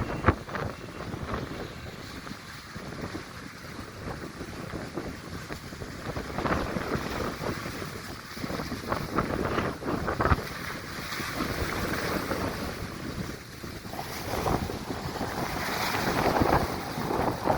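Strong wind buffeting the microphone in gusts, mixed with high waves surging and splashing, with a few sharp slaps along the way.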